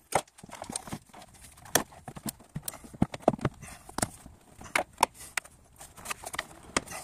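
Plastic air filter box housing being handled and pushed back into place: irregular hard plastic knocks and clicks, about a dozen sharp ones, with rubbing and rustling between them.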